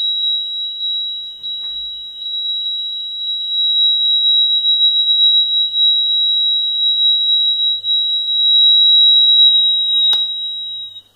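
An electronic buzzer gives one continuous high-pitched tone. A click comes about ten seconds in, and the tone cuts off just before the end.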